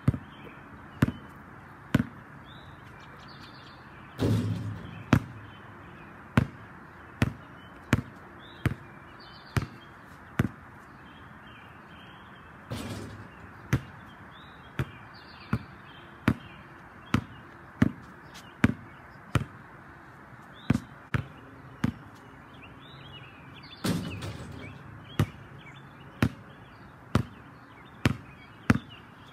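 A basketball dribbled on a concrete driveway, one sharp bounce about every second. Three times a louder, longer hit rings out as a shot strikes the portable hoop's backboard and rim.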